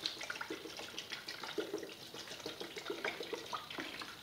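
CLR rust remover pouring from its plastic jug into a narrow plastic container of wrenches and tools, a continuous stream with irregular splashes.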